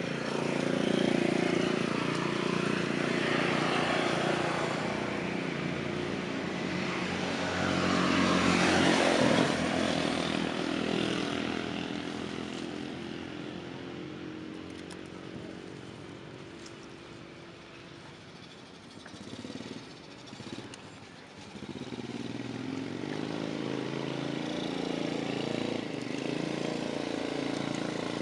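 Passing motor vehicle engine, its pitch gliding as it grows louder to a peak about nine seconds in and then fades away. A few soft clicks sound in the quiet stretch that follows, and engine sound comes back over the last several seconds.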